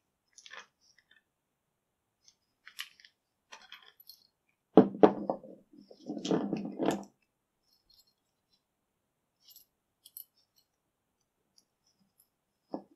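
Rusty old padlocks wired together clinking against one another as they are handled, with a small ring of keys jangling. Scattered light clicks, with two louder metal clanks about five seconds in and again a second or so later.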